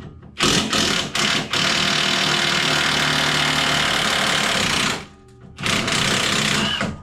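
Impact wrench driving a suspension bolt: a few short trigger blips, then a long run of about three and a half seconds, and another of over a second near the end.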